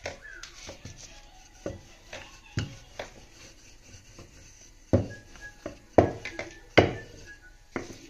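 Irregular sharp wooden knocks from a wooden rolling pin and hands on a wooden countertop as roti dough is rolled and patted out, with three louder knocks in the second half.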